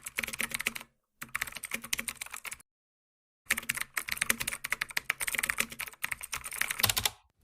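Rapid keyboard typing, a dense run of quick key clicks in three spells, broken by a short pause about a second in and a longer silence near the middle.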